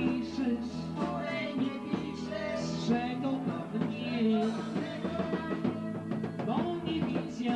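Dance-band music: a singing voice over a bass line and a steady drum beat.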